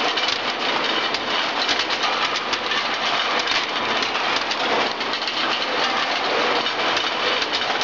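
Skew rolling machine running with a steady mechanical din, while steel balls roll down a steel chute and drop into a drum of balls, making a dense stream of small metallic clicks and knocks.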